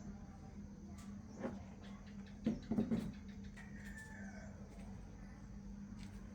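A chicken clucking a few times, loudest about halfway through, over a steady low hum.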